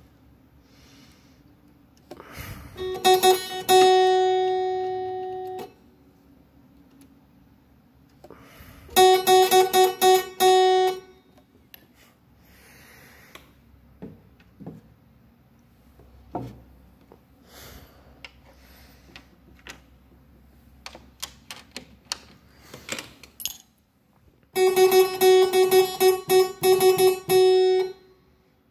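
A single harpsichord note, the f#' on the 8-foot choir of a Sperrhake single-manual harpsichord, plucked over and over as test notes while its jack's top adjustment screw is set. It comes in three bursts: a few plucks ending in one held, fading note, then a quick run of repeats, then a longer run near the end. Light clicks and knocks of the jack and tools fall between the bursts.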